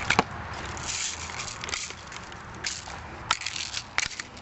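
Daisy Red Ryder BB rifle being handled: three sharp clicks, one just after the start and two more about three and four seconds in, with rustling between them.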